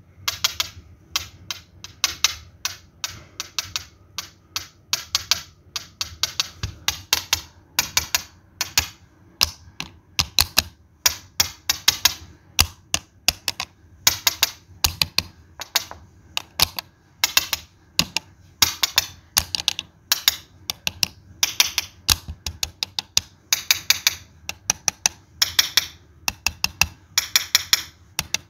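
A continuous run of sharp clicks in quick clusters, like typing on a keyboard.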